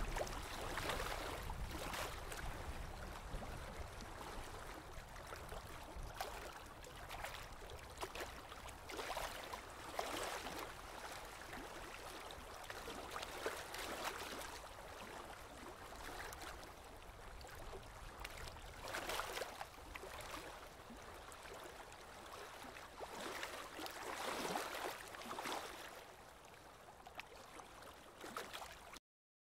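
Water lapping and gurgling in uneven swells every second or so, over a low rumble. It cuts off suddenly near the end.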